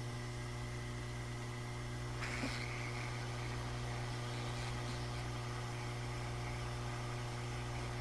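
Hot-air rework station's blower running with a steady hum while the freed flash chip is lifted off the board with tweezers, and a short scrape and click about two and a half seconds in.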